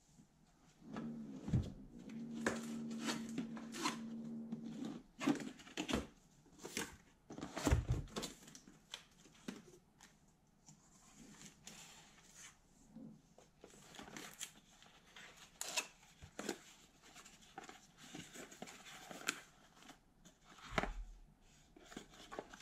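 Cardboard packaging being opened and unpacked by hand. Near the start there are a few seconds of low steady rubbing as the box slides open, then knocks and thumps, and cardboard and plastic bags rustling as parts are lifted out.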